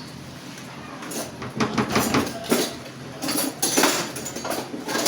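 Metal spoon scraping and clinking against a pan of onions frying in oil, a run of stirring strokes starting about a second in, over a low steady hiss.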